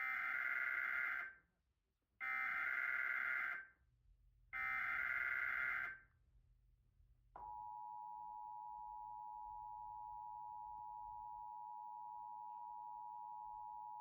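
Emergency Alert System test tones: three short data bursts of the SAME header, about a second apart, then, about seven seconds in, the steady two-tone attention signal, which holds.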